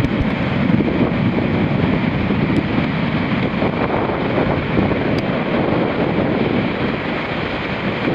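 Heavy shorebreak surf: large waves breaking and white water rushing up the sand, a loud, steady wash of noise.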